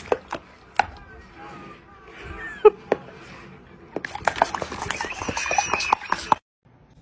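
A black Labrador-type dog chewing and crunching on something, with scattered sharp clicks, then a dense run of crunching and scuffling about four seconds in that cuts off suddenly.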